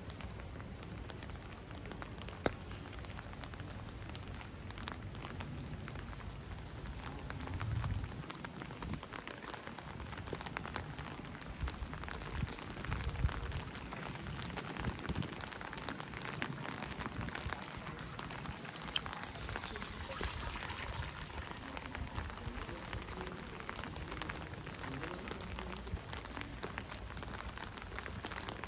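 Heavy rain falling and splashing on hard surfaces, a steady hiss full of small drop clicks. Two brief low rumbles rise out of it, about eight and thirteen seconds in.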